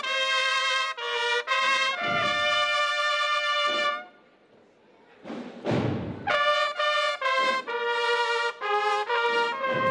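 A trumpet playing a slow melody of held notes in two phrases, with a pause of about a second between them, over occasional deep drum beats.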